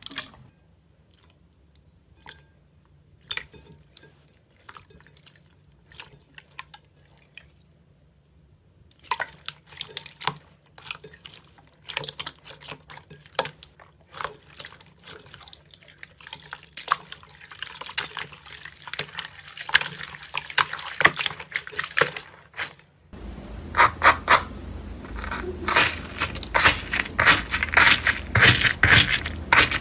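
Slime being squished and worked by hand: sticky, wet clicks and pops. They are sparse at first and grow denser from about nine seconds in. They become louder and almost continuous for the last several seconds.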